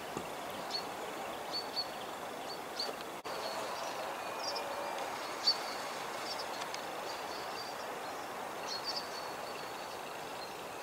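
Small birds chirping in short, scattered calls over a steady outdoor hiss, with one brief sharp click about five and a half seconds in.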